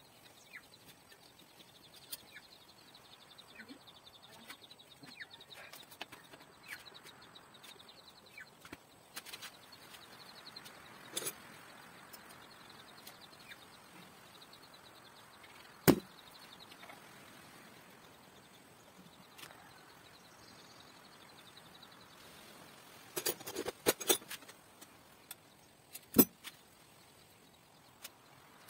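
Sparse sharp clicks and knocks of a hex key and metal bike parts as a BMX bike's handlebar and stem are fitted and tightened: one loud knock around the middle, a quick cluster of clicks several seconds later and one more just after. Faint bird chirps in the background during the first part.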